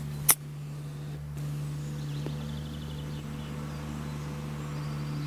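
A single sharp click of a golf club striking the ball on a short chip shot, about a third of a second in, over a steady low hum and faint bird chirps.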